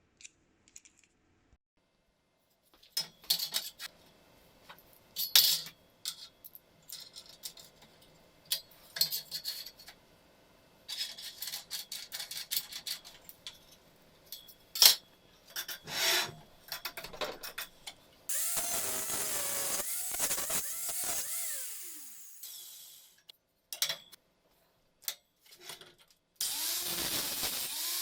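Clicks and knocks of metal parts being handled and slid. Then a power tool, likely the angle grinder, runs for about three seconds and spins down, and starts again near the end.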